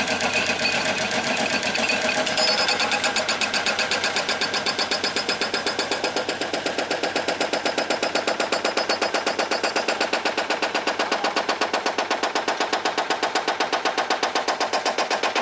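Hydraulic breaker on a compact loader hammering its chisel into the road surface beside the rails, a rapid steady pounding of about eight to ten blows a second.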